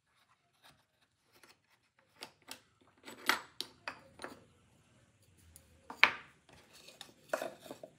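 Clicks, taps and clatters of small metal and wooden jig parts being handled: a clamp with a wooden knob loosened and moved, and a wooden block picked up. The sharpest knocks come about three seconds in, about six seconds in and again near the end.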